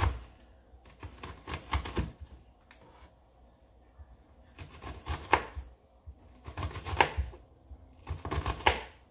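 Kitchen knife chopping a red onion thin on a cutting board: several quick runs of knife strokes knocking on the board, with short pauses between them.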